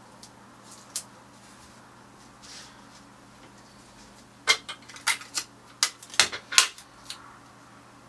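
Invisible tape being pulled off the roll and torn off in short strips: a quick run of sharp crackles and snaps about halfway through, after a few soft clicks.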